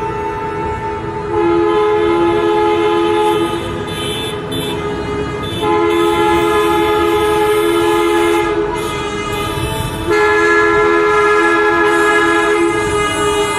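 Tour-coach horns sounded in long, sustained blasts in protest, several horns at once, sounding as a chord. Louder blasts start about a second in, near the middle, and about ten seconds in.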